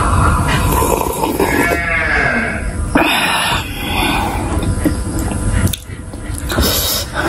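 Masala chai sipped and gulped from a glass, with a low drawn-out hum that slides in pitch, then a loud breath out about three seconds in. Near the end, fried pakodas rustle as they are picked from the plate.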